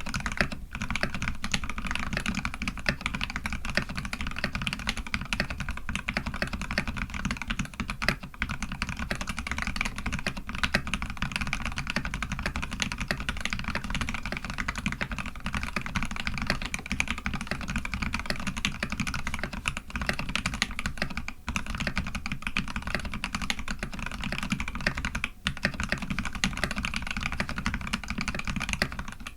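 Continuous fast typing on a custom Eo87 87-key mechanical keyboard built with a brass plate, lubed Polaris Gray switches with TX films, and Dev/tty keycaps: a dense, unbroken run of keystroke clacks.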